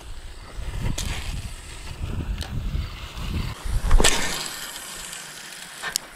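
Wind rumbling on the microphone, with the clicks and rattles of a fishing rod and reel being handled and cast. The sharpest click comes about four seconds in, and the rumble dies down soon after.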